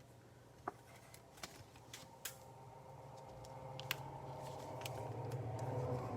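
Scattered light clicks and taps from handling small objects, over a low steady hum that grows louder toward the end.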